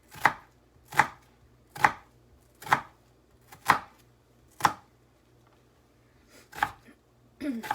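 Kitchen knife chopping on a cutting board in slow, even strokes about once a second: six strikes, a short pause, then another near the end.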